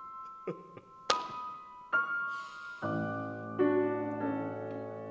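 Grand piano playing: two high notes struck about a second apart, then fuller chords with deep bass notes from about three seconds in, each left to ring.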